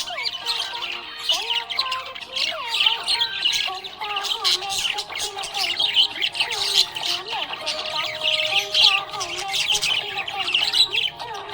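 Budgerigar chirping and chattering continuously, a dense stream of rapid high chirps.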